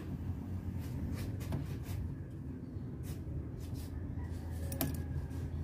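A few light clicks from locking pliers squeezing and releasing a spring-type hose clamp on a radiator hose, the sharpest about five seconds in, over a steady low hum.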